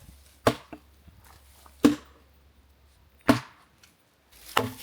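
An axe chopping into a fallen log for firewood: four solid strikes, evenly spaced about one and a half seconds apart.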